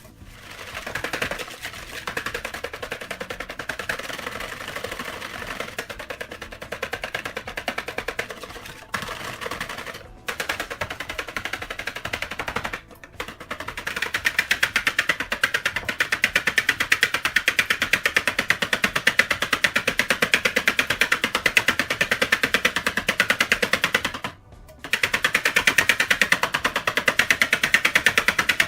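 Fast, steady beating in a mixing bowl: a rapid rattling clatter of the beaters or whisk against the bowl. It stops briefly a few times and gets louder about halfway through.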